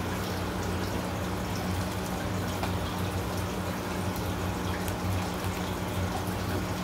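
Aquarium filter running: a steady trickle of water over a low electrical hum.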